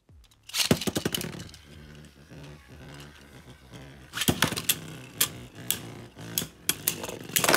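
Beyblade spinning tops launched one after the other into a plastic stadium dish, spinning and scraping on the plastic, with repeated sharp clacks as the two tops strike each other. The clatter comes in a cluster about half a second in, then again from about four seconds on, loudest near the end.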